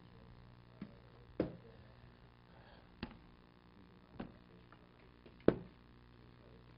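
A handful of scattered taps and knocks over a low steady room hum, the loudest near the end: papers and a paper cup being handled on a table close to a clip-on microphone.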